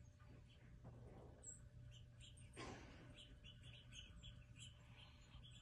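Near silence: quiet room tone with faint short high chirps scattered through it and a brief soft rustle about two and a half seconds in.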